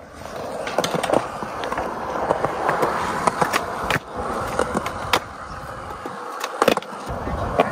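Skateboard wheels rolling on smooth concrete, with a run of sharp clacks as the board's trucks and tail hit the edge and top of a concrete ledge, the loudest clacks near the end.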